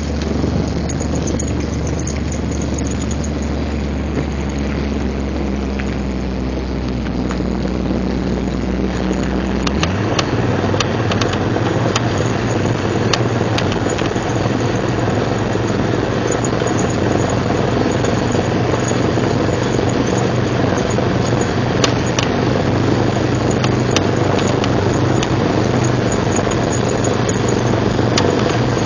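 Jeep Cherokee XJ running, a steady low engine hum that steps up in pitch about ten seconds in, then a rougher, noisier drivetrain drone with scattered clicks.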